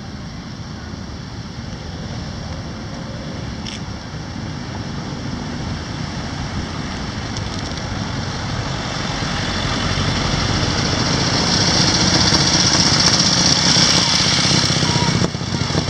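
Motor vehicles passing close: a pickup truck goes by, then motorcycles ride up, the engine and tyre noise growing louder through the second half.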